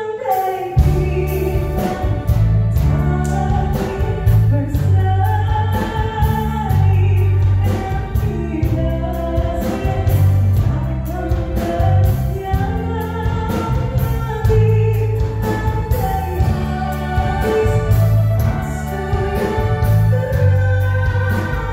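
A man singing into a microphone through a PA system, backed by a live band with a prominent electric bass line and a steady beat.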